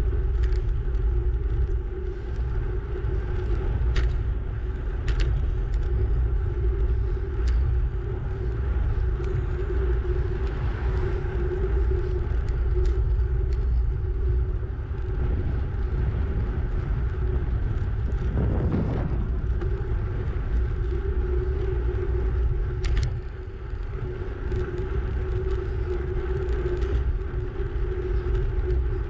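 Wind buffeting the microphone of a camera on a bicycle riding at about 30 km/h: a steady low rumble, with a few short clicks.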